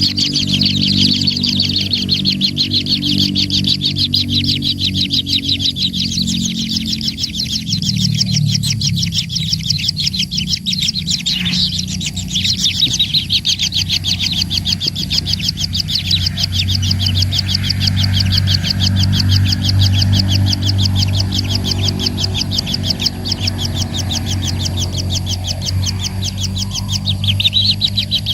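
A small bird chirping in a rapid, continuous chatter, over a low steady hum.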